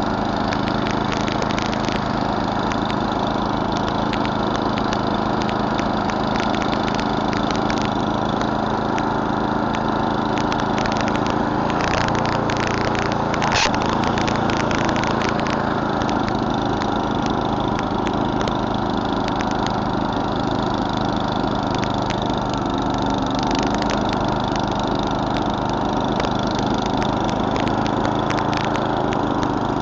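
Murray Select snowblower's 11 hp Tecumseh single-cylinder engine running steadily under load while clearing snow. Scattered sharp clicks run through it, with a brief cluster of louder clicks about halfway through.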